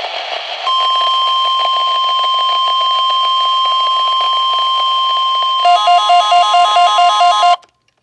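NOAA Weather Radio's 1050 Hz warning alarm tone: a loud, steady single-pitch tone broadcast to trigger alert receivers during a required monthly test, starting after a moment of radio hiss. About five and a half seconds in, a rapidly pulsing two-pitch electronic beep sounds over it for about two seconds. Both cut off suddenly near the end.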